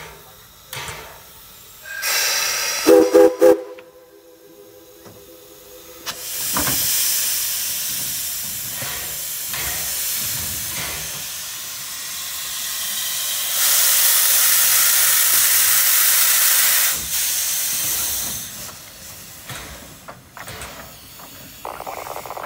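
Heisler geared steam locomotive No. 6 sounding its steam whistle, a toot then three short quick blasts about three seconds in, followed by a long loud hiss of venting steam that swells in the middle and fades out near the end.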